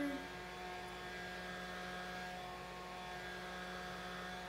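Small battery-powered handheld fan running: a steady electric motor hum with a whine.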